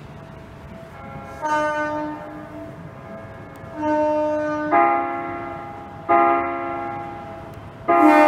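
Electric train horn sounded in five short blasts, each a chord-like tone lasting about a second, the later blasts louder than the first.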